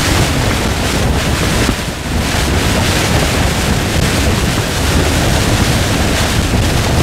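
Typhoon wind and heavy rain lashing a tent, heard from inside as a loud, steady rushing noise, with wind buffeting the microphone.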